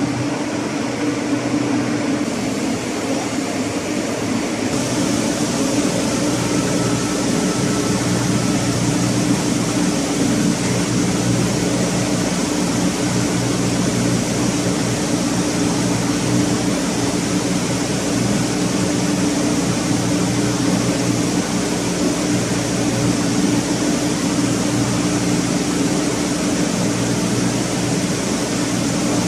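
Steady machinery drone from a running marine inert gas generator plant: a low hum under a rushing hiss. The hiss gets brighter about five seconds in.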